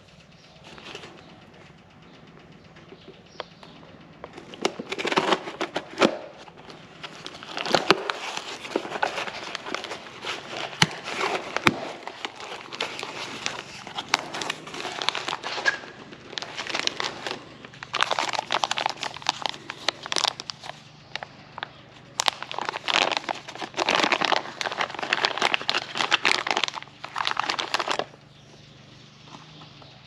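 A cardboard box being slit open with a blade, then cardboard and plastic bag packaging rustling and crinkling in irregular bursts as the parts are unpacked.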